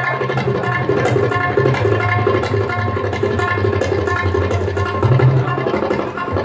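Tabla solo: a fast, dense run of strokes on the tuned right-hand drum, its pitch ringing through, over deep bass tones from the left-hand drum that shift every second or so.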